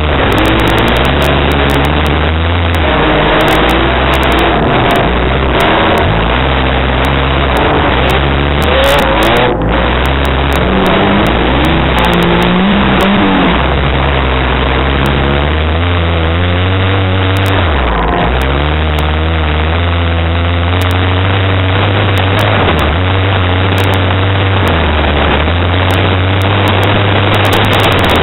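Honda Prelude crazy cross car's engine under hard load on a dirt track, revs rising and falling again and again as it accelerates, lifts and slides, heard loud from a roof-mounted camera.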